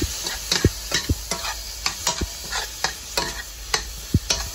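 A utensil stirring sliced onions, bell peppers and cucumber in a hot frying pan, knocking and scraping against the pan at irregular moments about twice a second, over a steady sizzle.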